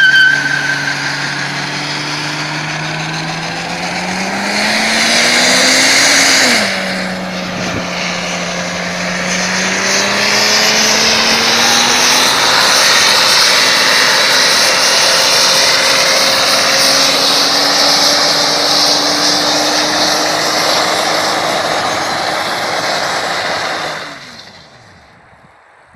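Toyota JZX100 Tourer S's 1JZ-GE straight-six revving hard with the rear tyres spinning and squealing in a burnout. The revs climb, drop back briefly about six seconds in, then hold high under a steady tyre screech that cuts off suddenly near the end.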